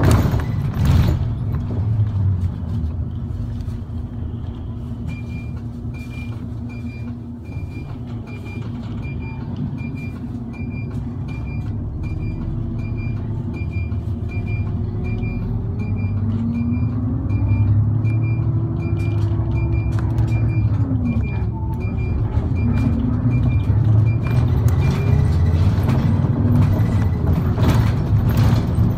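Route bus under way, heard inside the cabin: steady engine and road noise, with the engine note rising and falling in pitch about two-thirds of the way through and the sound growing louder towards the end. Through most of the middle, a high electronic beep repeats about one and a half times a second.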